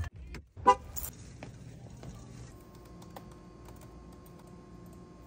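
A short, loud car-horn-like toot just under a second in, then quiet typing on a computer keyboard, with scattered key clicks.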